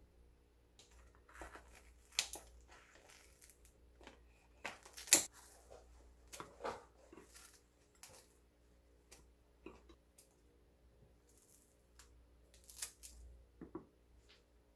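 Kitchen scissors snipping through crusty bread, a cheese garlic baguette among it: a string of irregular crunchy cuts and crumbly tearing, the loudest cut about five seconds in.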